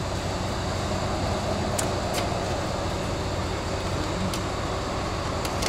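A steady low machine hum, with a few faint light clicks.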